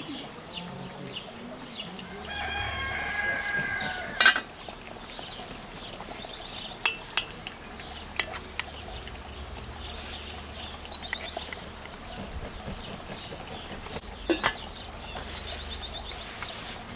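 A rooster crows once, a call of about two seconds starting about two seconds in, with small birds chirping high and faint throughout. A sharp metallic clank comes right after the crow and is the loudest sound, followed later by a few light clinks of a spoon and lid against a stainless steel pot.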